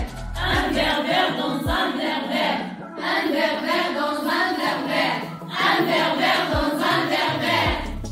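A chorus of young, mostly female voices singing together in three phrases of about two and a half seconds each, with short breaks between them.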